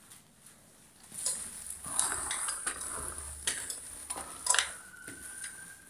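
Footsteps climbing stone stairs: shoes scuffing and scraping on gritty steps, with several irregular sharp knocks. A thin steady tone joins in over the last second and a half.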